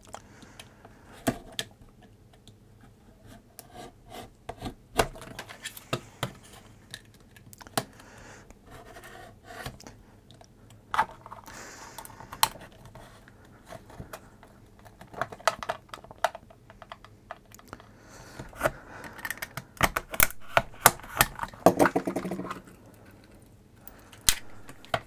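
A knife scraping and cutting along the glued or welded seam of a plastic power-supply case, with many sharp plastic clicks and cracks as the case is worked apart. A dense run of loud clicks and cracks comes about twenty seconds in.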